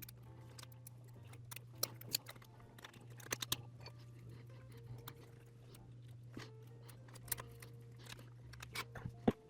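Irregular light clicks and taps of hands working on a plastic drone remote controller shell, with a few sharper knocks, the loudest just before the end, over a steady low hum.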